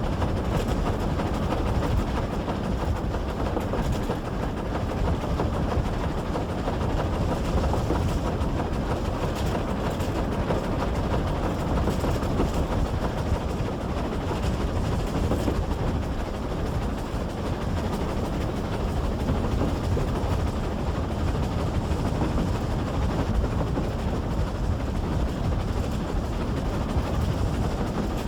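A train in motion heard from on board a carriage hauled by GWR Pannier Tank no. 6412: a steady, even rumble of wheels on track, with faint clicks from the rail joints.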